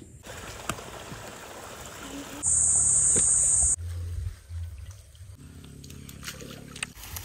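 Outdoor riverside sounds in short cuts: water trickling, broken by a loud, steady, high-pitched buzz that lasts just over a second near the middle.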